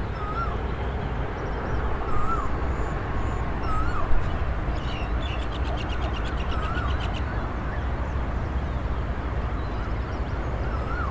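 Open-field dawn ambience: a short whistled call that rises then drops repeats every two seconds or so, with faint high bird chirps and a rapid trill of clicks about five seconds in, over a steady low rumble.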